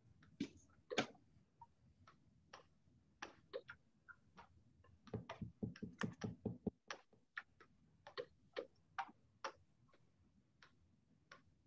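Faint, irregular clicks and taps of computer keyboard typing and mouse clicks, picked up over a video call. They come in uneven runs, bunching up about halfway through.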